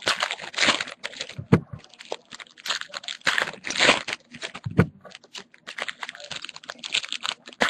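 Trading cards being handled by hand: an irregular run of quick clicks and rustles as the cards are shuffled and slid against each other, with a couple of soft knocks.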